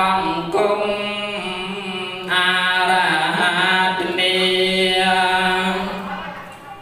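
A man chanting a Buddhist text into a microphone on a steady, held pitch, in long phrases that break every one to two seconds.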